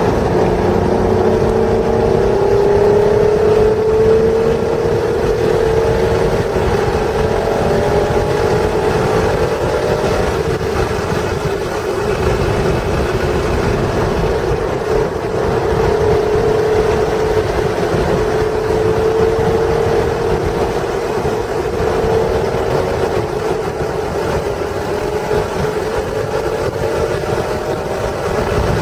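1996 Acura NSX's stock 3.0-litre V6 running hard at speed, its note climbing slowly through several long pulls, over steady heavy wind and road noise.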